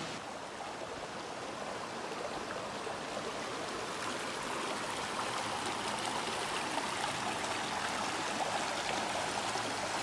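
Shallow forest stream running over rocks: a steady rush of water, a little louder from about four seconds in.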